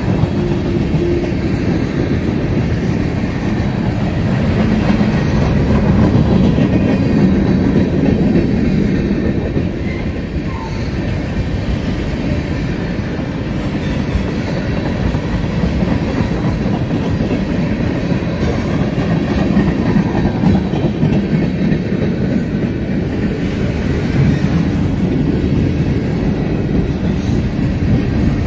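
Freight train cars rolling past close by, tank cars giving way to boxcars near the end: a steady rumble of steel wheels on the rails.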